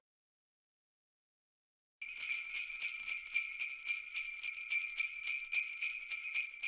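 Silence, then about two seconds in sleigh bells start shaking in a quick, steady rhythm: a jingle-bell passage in the background music.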